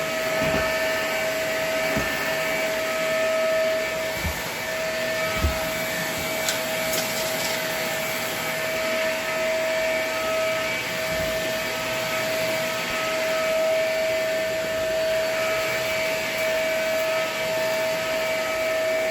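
Vacuum cleaner running steadily, its motor giving a constant whine over a rushing airflow, with a few dull knocks as it is pushed over the floor.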